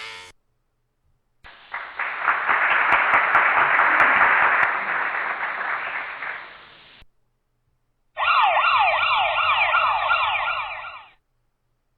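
Two stock sound effects in turn. First, about five seconds of loud rushing noise with no clear pitch, with a few sharp clicks in it. Then, after a second's silence, an emergency-vehicle siren in fast repeating yelp sweeps for about three seconds.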